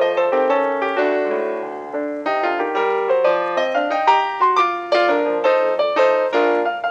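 Solo piano music in a brisk run of struck notes, with one chord left to ring for about a second near the start.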